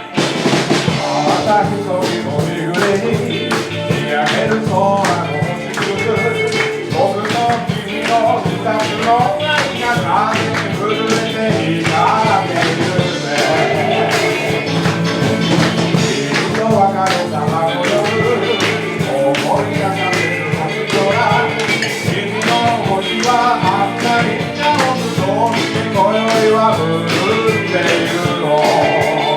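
Live rock band playing a 1960s Japanese 'eleki'-style electric-guitar number, with bass and drums under a melody line. The band kicks in loudly right at the start.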